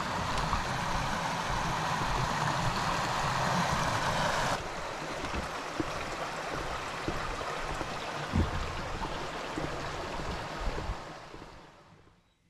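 Steady rushing of creek water. It cuts abruptly a little over four seconds in to a softer stretch with a few short knocks, then fades out near the end.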